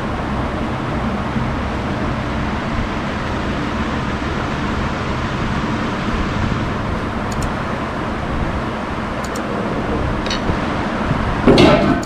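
Steady rumble of background traffic noise, with a few short light clicks and a louder knock near the end.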